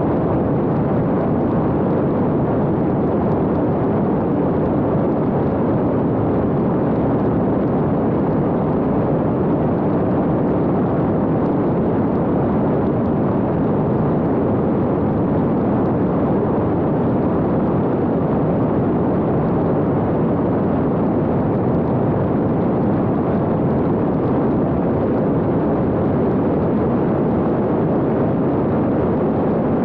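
Steady rush of airflow and propeller noise heard on board an X-UAV Talon fixed-wing drone in cruising flight, an even loud roar without changes.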